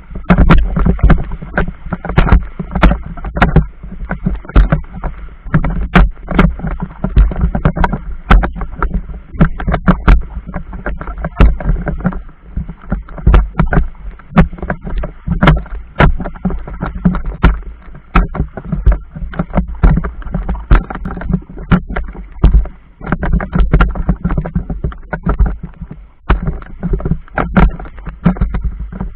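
Choppy river water slapping against the hull of a small fishing boat: a steady low rumble with many irregular knocks and slaps.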